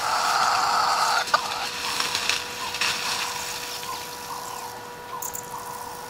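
An African elephant browsing in bushes: a burst of leaves and branches rustling for about a second, a single sharp snap, then shorter rustles. Small birds chirp faintly in the second half.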